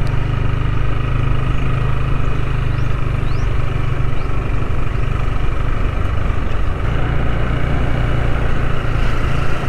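Motorcycle engine running steadily under way, with a strong, even low drone.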